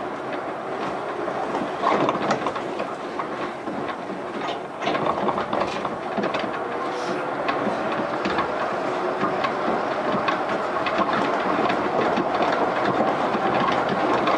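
Yukarigaoka Line 1000-series rubber-tyred people-mover running, heard from inside an unpowered trailer car. There is a steady running noise with occasional knocks over the guideway, and a whine rises in pitch as the train gathers speed.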